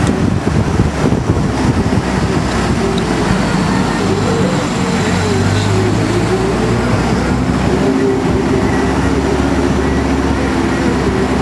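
Engine and road noise of a moving vehicle heard from inside the cabin, steady throughout, with the engine's pitch drifting up and down a little.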